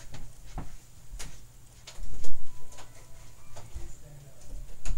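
A person's footsteps thudding on a floor while walking away, with scattered sharp clicks and knocks between them; the heaviest thud comes about two seconds in.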